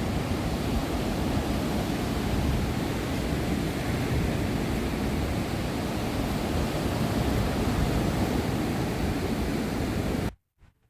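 Steady roar of wind buffeting the microphone on a beach, mixed with ocean surf; it cuts off suddenly near the end.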